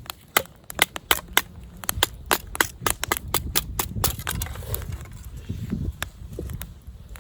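Dry wood snapping and crackling in a run of sharp, irregular cracks, about two a second.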